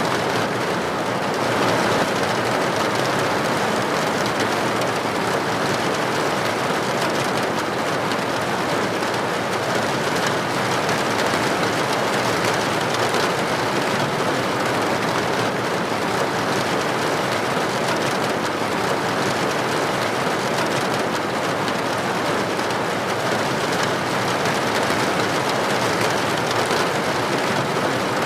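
Steady rain: an even, unbroken hiss of dense drops with no pauses or single drops standing out.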